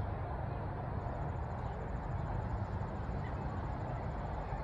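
Steady open-air background noise with a low rumble and a hiss. From about a second in comes a faint, rapid, high-pitched pulsing of crickets.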